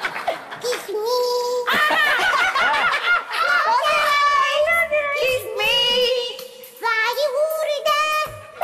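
A high-pitched voice singing a melody in phrases, with short breaks between them.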